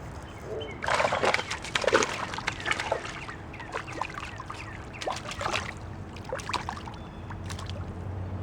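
Water splashing and sloshing in irregular bursts, strongest about one to two seconds in, as a hooked trout thrashes at the surface of a shallow river while it is being landed.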